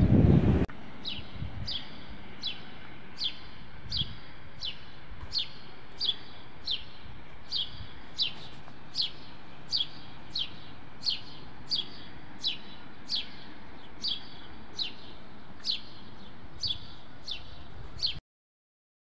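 A small bird calling the same short, high, falling chirp over and over, about one and a half a second, over a steady low street hum. A brief burst of wind rumble on the microphone opens the stretch, and the sound cuts out completely near the end.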